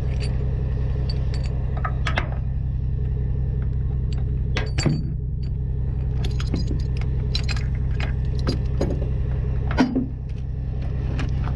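Steel G70 hook-and-chain links clinking and rattling as the chain is handled and a chain binder is hooked onto it, in scattered clinks with a louder knock about five seconds in and another near ten seconds. A steady low rumble runs underneath.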